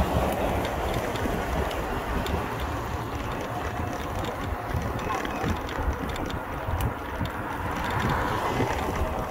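Steady rumble of rolling and wind noise from a camera carried by a moving rider along a paved path, with light mechanical rattling and clicking from the camera's mount.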